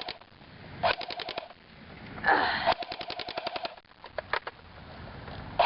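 Electric airsoft gun firing full-auto in several short bursts, a rapid clatter of about a dozen shots a second with the motor's whine running under each burst.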